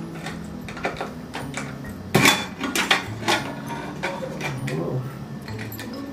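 Metal clanks and clicks as a pressure cooker's lid is unlocked and lifted off its pot, the loudest knocks coming about two to three seconds in.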